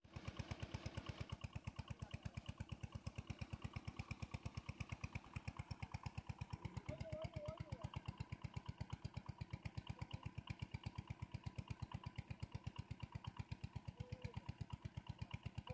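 Small engine of a water pump chugging at a rapid, even beat as it drains the pond.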